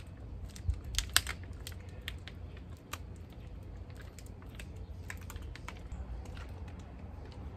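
Thin plastic water bottles crackling and clicking in a tight grip as they are curled at the wrists: irregular sharp clicks, loudest in a quick cluster about a second in, over a steady low rumble.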